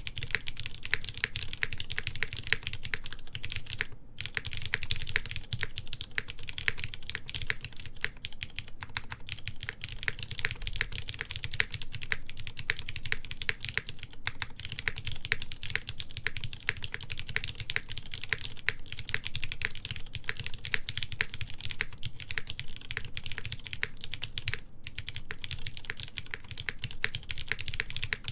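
Steady fast typing on a mechanical keyboard with lightly lubed linear Cherry MX Black switches, GMK keycaps and a forged carbon fiber plate: a dense run of keystroke clicks with a few brief pauses.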